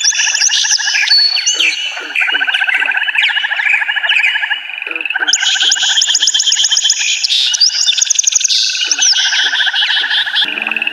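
A dense chorus of small songbirds, many chirping and trilling at once in quick, overlapping phrases. It goes on without a break, and the high twittering grows busier about halfway through.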